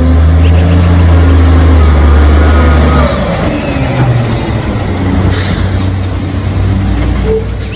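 Garbage truck's engine running as the truck drives close past, a deep steady drone that is loudest for the first three seconds and then gives way to a rougher rumble.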